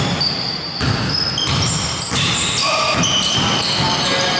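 Basketball bouncing on a hardwood gym floor amid players' running footsteps, with many short, high-pitched sneaker squeaks that change pitch.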